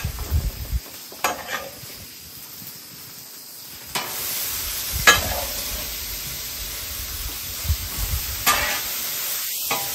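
Food sizzling on a hot Blackstone flat-top griddle: a steady frying hiss that swells suddenly about four seconds in, with a few sharp clicks from utensils scattered through it.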